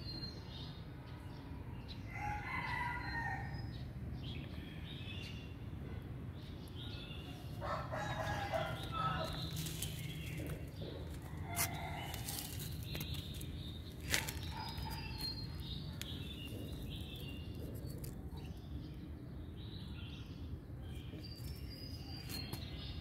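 Birds calling: short high chirps throughout, with two longer calls, one a few seconds in and one of about two seconds near the middle. A steady low rumble runs underneath, and two sharp clicks come a little after the middle.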